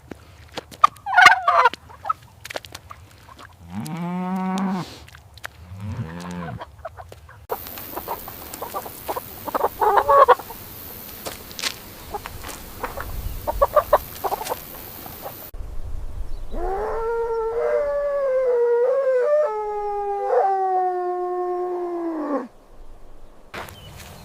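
A series of separate farm animal calls: short calls at first, two brief pitched calls, a run of short repeated calls over background noise, then one long wavering call lasting about five seconds.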